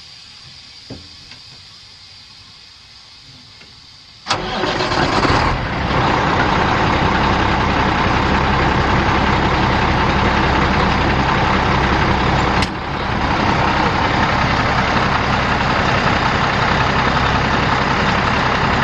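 Cummins L10 10-litre inline-six turbo diesel of a 1993 International Eagle 9400 dump truck cranking and catching about four seconds in, then idling steadily. A short click and a momentary dip come about twelve seconds in.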